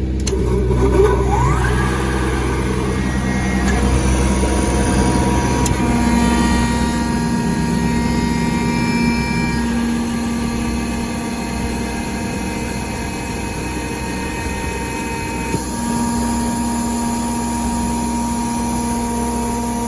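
A 10 HP rotary screw air compressor starts up with a rising whine as its motor spins up, then runs steadily with a mix of humming tones. A generator engine runs underneath.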